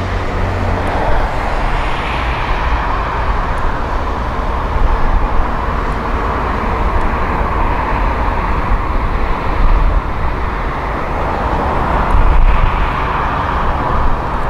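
Twin jet engines of a Boeing 737 airliner at takeoff power as it lifts off and climbs away: a continuous, loud jet noise with a deep, uneven rumble underneath.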